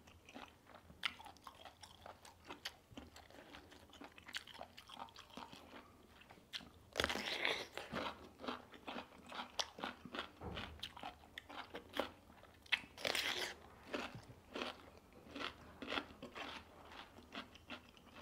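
Close mouth sounds of eating: soft chewing clicks, then loud crisp crunches of bites into a raw cucumber starting about seven seconds in, with more crunchy chewing after.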